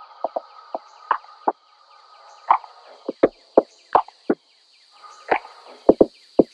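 Steady high-pitched insect chirring, broken by about fifteen irregular sharp clicks and knocks, which are the loudest sounds.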